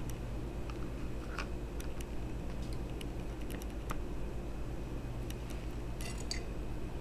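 Scattered faint clicks and taps from hands on a plastic high-chair tray, with a small cluster of them near the end, over a steady low hum.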